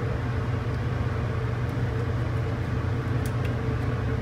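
Steady low mechanical hum at an even level, with a few faint ticks about three seconds in.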